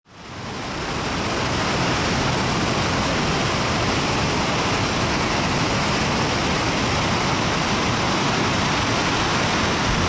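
Steady, heavy rush of the Rhine Falls, a large, high-volume waterfall, with water pouring and crashing into spray. The sound fades in from silence over the first second or so, then holds even.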